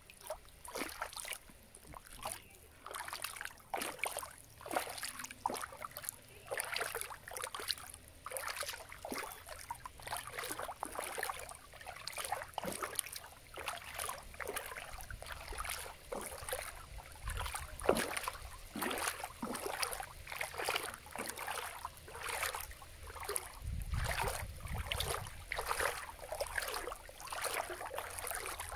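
Lake water lapping and splashing in quick, irregular small splashes. A low rumble comes in twice, about two-thirds of the way through.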